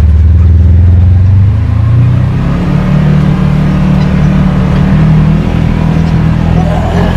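Side-by-side utility vehicle's engine running, heard from inside the cab; its pitch rises between about one and a half and two and a half seconds in as it speeds up, then holds steady.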